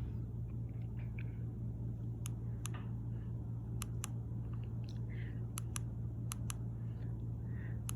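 Fanimation Blitz DC-motor ceiling fan running steadily on its fifth speed, a steady low hum under an even rush of noise. Several light sharp clicks, mostly in close pairs, sound over it from about two seconds in.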